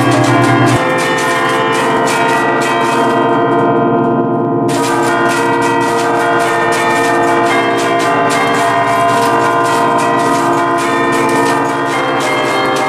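Eight-bell concerto in B-flat, cast by Luigi and Giorgio Ottolina of Seregno in 1949, struck from a baton keyboard in a quick festive melody. Rapid clapper strikes follow one another over a dense wash of ringing, overlapping bell tones, which turn brighter about five seconds in.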